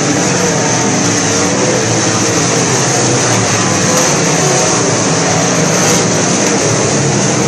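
A field of southern sport mod dirt-track race cars racing around the oval, their engines a loud, steady, dense din with no single car standing out.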